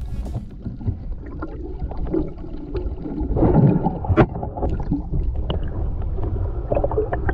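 Water sloshing and bubbling around a camera held in shallow sea water, dull-sounding, with scattered sharp clicks. A louder rush of water comes about three and a half seconds in.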